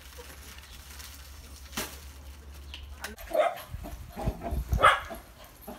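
Puppies yapping and barking in play: a few short barks in the second half, over a steady low rumble with some low thumps.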